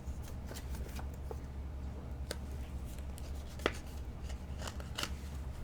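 1973 Topps basketball cardboard trading cards being handled and slid against one another: a scatter of small clicks and flicks, one sharper snap a little past the middle, over a steady low hum.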